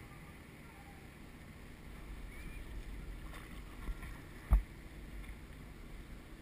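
Inflatable kayak afloat: faint water and wind noise with a low rumble, broken by one dull thump a little past halfway.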